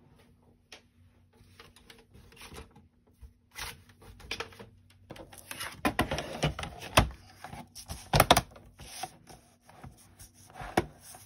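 Plastic scoring board and paper being handled on a craft table: scattered clicks, light knocks and rustling, loudest in a cluster of knocks around the middle.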